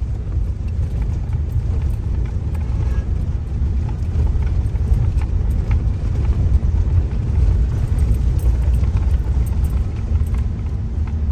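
Steady low rumble of a moving vehicle travelling along a road.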